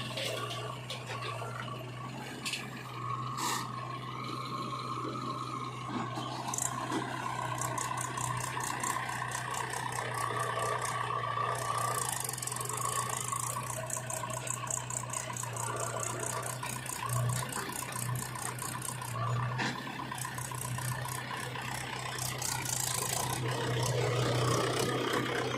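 Backhoe loader working, its diesel engine running steadily under a metallic rattling of the machine, with a fast rattle for a few seconds before the middle.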